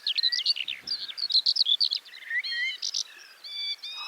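Eurasian skylark singing: a fast, continuous stream of high chirps and trills.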